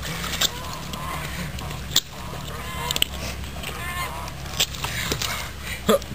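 Repeated short honking bird calls, with several sharp knocks standing out about two seconds in and again near the end.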